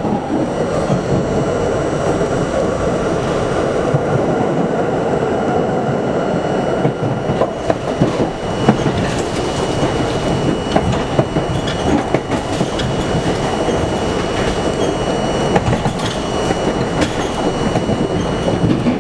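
R42 subway train running steadily along open track, its wheels rumbling and clicking over rail joints, heard from inside the lead car.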